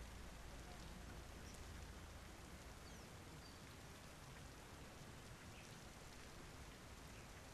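Faint, steady rain falling, an even hiss with a few faint high chirps near the middle.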